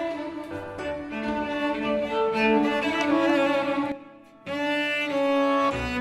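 Solo cello playing a melody in long bowed notes, with a short pause about four seconds in before the bowing resumes.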